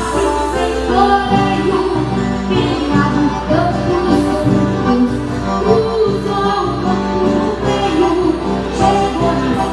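A child sings a gaucho nativist song, accompanied live by a piano accordion and an acoustic guitar.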